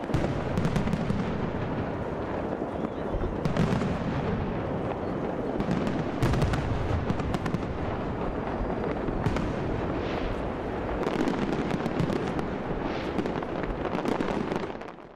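Aerial fireworks display going off without pause: a continuous rumble of overlapping bangs, with many sharp cracks following one another in quick succession.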